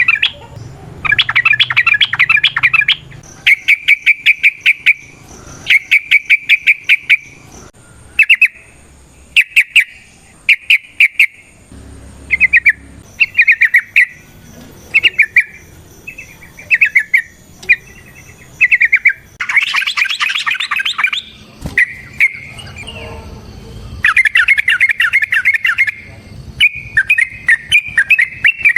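Yellow-vented bulbul (trucukan) singing in quick rattling, bubbling phrases, repeated every second or two, with a harsher burst about two-thirds of the way through.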